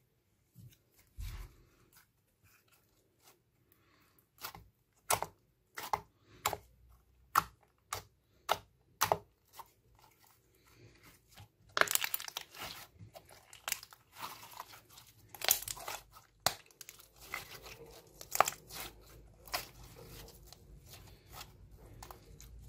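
Slime being squeezed, folded and stretched by hand: a string of sharp, sticky pops about one or two a second, then a denser crackling from about halfway as the slime is pressed and pulled apart.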